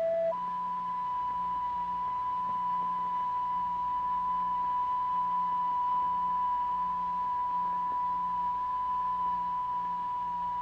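A single pure, steady test tone, the sound driving the vibrating plate in a cymatics experiment, which sets the particles into pulsating wave figures. It steps up to a higher pitch just after the start, then holds unchanged over a faint low hum.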